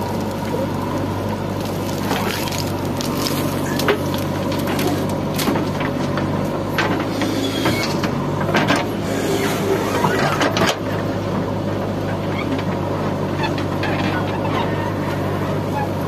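JCB 3DX backhoe loader's diesel engine running steadily as the backhoe digs and swings, with scattered knocks and clatters from the bucket and falling soil, most of them between about four and eleven seconds in.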